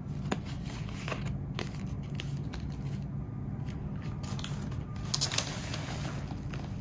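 Paper handling: a stiff card and its envelope tapped and shuffled, then tissue paper crinkling as a boot is lifted out of it, with a short louder crinkle about five seconds in. A steady low hum runs underneath.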